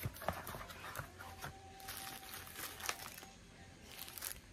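Cardboard packaging being handled and a plastic bag crinkling in the hands: scattered rustling with a few light knocks.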